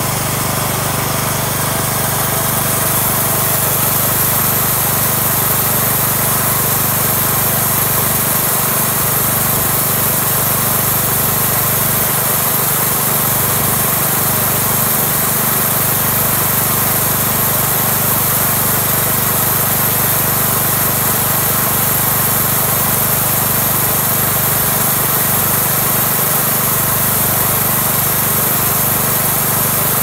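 Homemade sawmill's small engine running at a constant speed, with a steady high-pitched whine above it.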